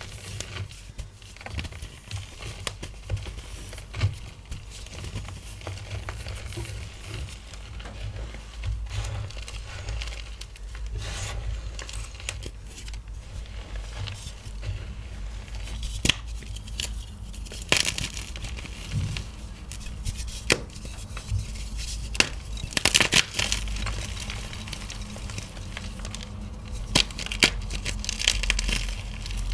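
Blocks of gym chalk being crushed and crumbled by hand: continuous crunchy crumbling with many sharp snaps and crackles. The snaps come thickest and loudest in two clusters, about two-thirds of the way through and again near the end.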